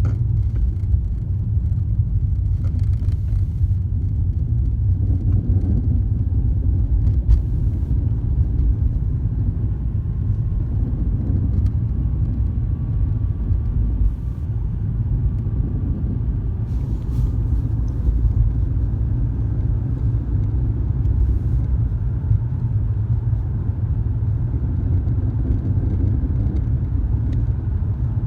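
Steady low rumble of a 2003 BMW E46 325xi on the move, with a few faint short knocks a handful of times. The knocks are the kind of driver-side clunk the owner is trying to diagnose.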